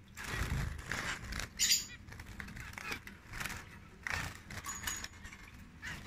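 Caged zebra finches giving short nasal calls in separate bursts, the loudest about two seconds in, with wing flutter in the first second or so.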